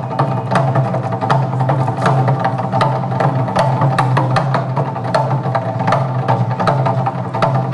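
Korean traditional drum ensemble playing barrel drums (buk) in a fast, even rhythm of sharp strikes, several a second, over amplified music with a steady low drone.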